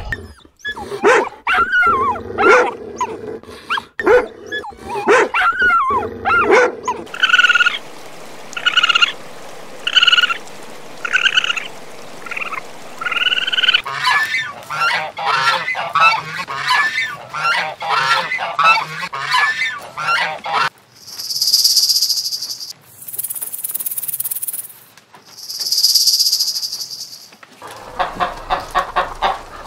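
Canada geese honking, a long run of repeated calls, with three long hisses in the later part. Near the end, hens start clucking.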